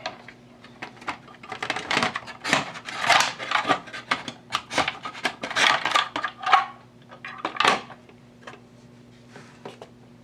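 Circuit board of an audio amplifier being worked loose and lifted out of its chassis: a run of irregular clatters, knocks and scraping that dies down about eight seconds in.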